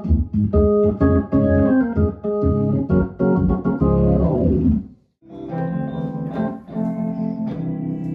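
Hammond A100 organ playing chords over a pulsing bass line, with a falling run near four seconds in. The sound cuts out just after five seconds, and sustained Fender Rhodes electric piano chords follow.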